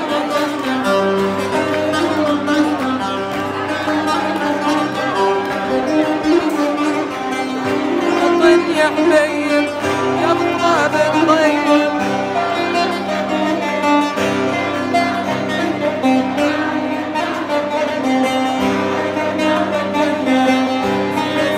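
Instrumental background music with sustained, changing notes.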